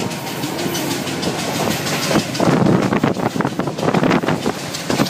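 Passenger train running at speed, its wheels clattering and rattling over the track, heard from an open carriage doorway. The rattling grows louder about two and a half seconds in.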